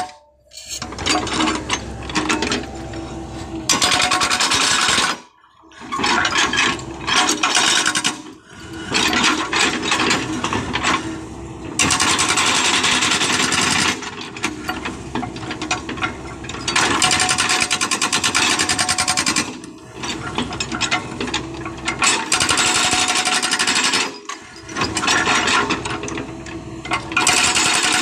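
Hydraulic breaker on a backhoe excavator hammering hard adobe rock, rapid blows in runs of a few seconds with short breaks between them.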